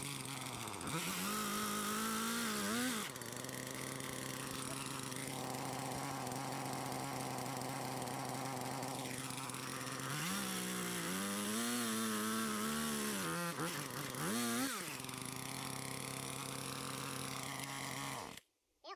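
Chainsaw engine running, its pitch rising and wavering twice as it is revved, running steadily in between, then cutting off suddenly near the end.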